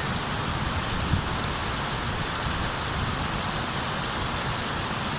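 Venta Rapid waterfall (Ventas rumba): water pouring over the wide, low drop in a steady, even rush.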